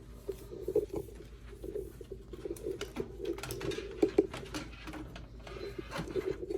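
Pigeon cooing in soft repeated pulses, with faint clicks and taps mixed in.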